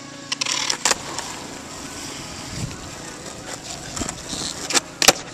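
Skateboard on asphalt: wheels rolling with a rough rumble, and several sharp clacks of the board, one about a second in and a cluster near the end, the loudest just before it ends.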